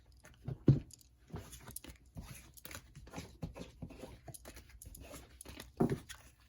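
Tarot cards being shuffled and handled: a run of soft, irregular clicks and rustles, with two louder knocks, one about a second in and one near the end.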